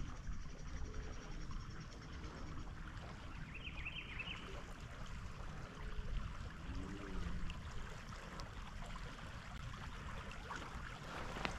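River water running in a strong current past a kayak, with a brief high chirp a few seconds in.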